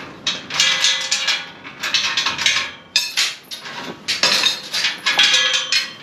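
Metal clattering and rattling in repeated short bursts, some with a faint ring.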